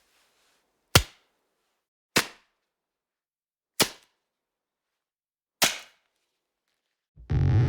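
Cartoon sound effect: four single sharp cracks, each ringing off quickly, spaced one to two seconds apart. Near the end a distorted, guitar-like musical effect starts.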